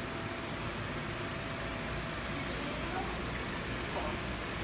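Steady background hum and hiss of a store's fish-tank aisle, with faint distant voices now and then.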